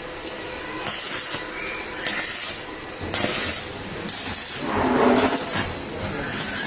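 Electric arc welding in short strikes: about six bursts of crackling hiss, each roughly half a second long, coming about once a second.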